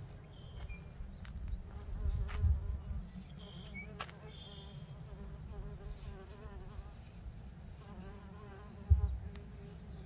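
Mason bees buzzing as they fly around drilled nest holes in a woodpile, the buzz wavering in pitch as bees pass close. Under it a low rumble, a few short high chirps, and a thump near the end.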